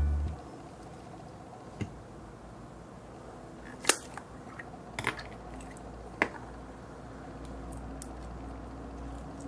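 Hands handling Play-Doh toys and tools: a few scattered light clicks and taps, the loudest about four seconds in, over a low steady hum.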